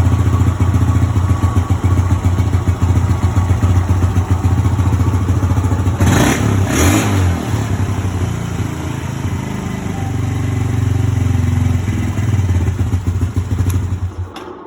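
E-ton Yukon 110 ATV engine running at a fast, uneven idle, with two brief loud noises about six and seven seconds in, then cutting off just before the end. The rough, high idle is what the owner expects from a carburetor not yet fully cleaned out.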